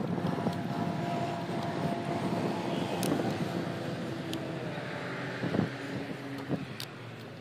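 Street traffic: a car passing with a steady engine hum, over wind rumble on the microphone, with a few light clicks.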